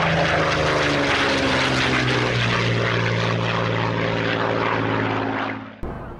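Propeller aircraft engine running steadily, its pitch dropping about two seconds in, then fading out near the end with a short click.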